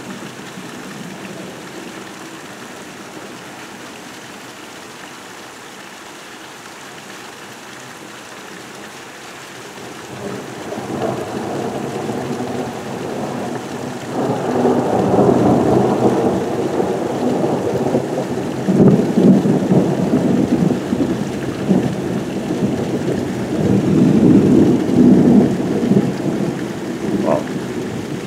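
Heavy rain falling steadily. About ten seconds in, a long roll of thunder builds and rumbles on, with several louder surges through the second half before it begins to fade.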